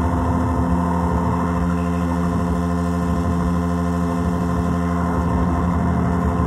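Synthrotek Chaos NAND noise pedal's oscillators droning: a dense, steady buzzing chord of many held tones, running through a Chase Bliss Habit delay.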